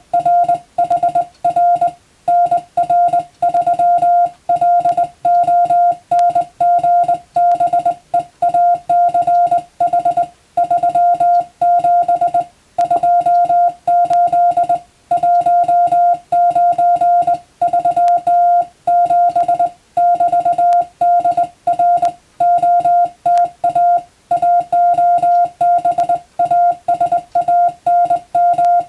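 Morse code: a single steady tone keyed on and off in quick dots and dashes, with a slightly longer gap now and then between words. It is a copying exercise of English-language telegram text.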